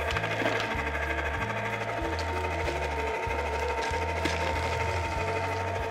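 Electric ice cream freezer's motor running and churning the canister, a steady whirring hum with a low throb repeating a little faster than once a second. It is at full speed, the mix not yet thick enough to make it lug.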